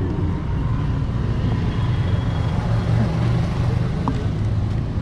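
An engine idling close by: a steady low rumble with a slight flutter.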